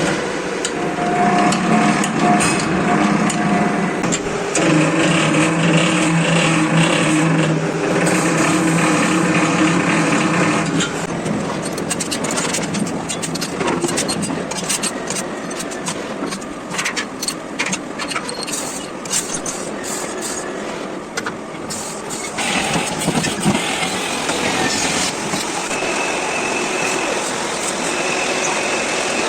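Milling-and-sawing machine for thin logs running under load, a steady machine hum of several tones that shifts in pitch a few times, with a stretch of rapid clattering knocks in the middle.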